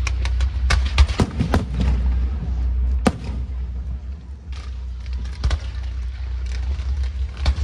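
Fireworks going off in an irregular string of bangs and pops, the sharpest about three seconds in, over a constant low rumble.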